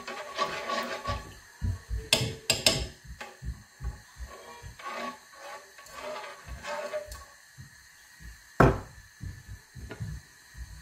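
A metal spoon stirring milk in a non-stick pot, scraping and rubbing against the pan. There are a few sharp knocks of the spoon, twice about two seconds in and a loudest one near the end.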